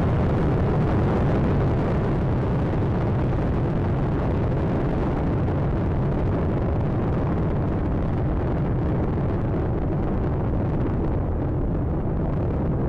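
Space Shuttle Atlantis's two solid rocket boosters and three main engines firing during ascent: a steady, deep, dense noise that holds an even level throughout.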